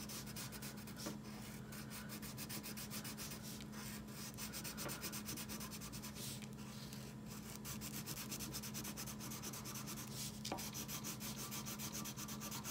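Wax crayon scribbling on paper: rapid back-and-forth strokes as an area is coloured in.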